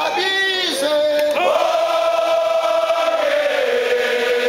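A large choir of several hundred voices singing a chant in unison: a short phrase with gliding notes, then one long held note from about a second and a half in.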